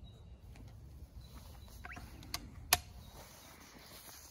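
Rifle scope turret being dialed, with crisp, aggressive clicks: a few faint clicks, then two sharper clicks a bit over two seconds in, the second one loud.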